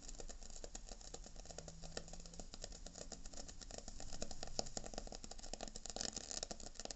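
Koln 80-litre electric water heater with dry heating elements, switched on and heating: dense, irregular crackling, sizzling and clicking from the bottom of the tank, like water spitting on a hot oiled pan. The owner puts the crackling down most likely to the anode being eaten away.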